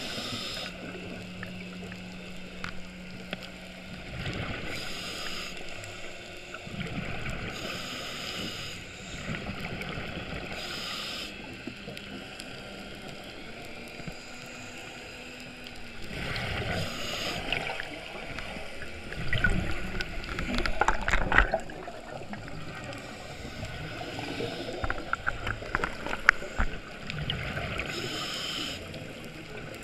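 A scuba diver breathing through a regulator underwater: hissing breaths every few seconds, with bubbling, crackling bursts of exhaled bubbles that are loudest about two-thirds of the way through.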